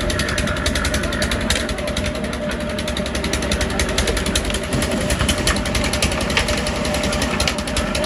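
Portable concrete mixer's engine running steadily with a rapid, even beat.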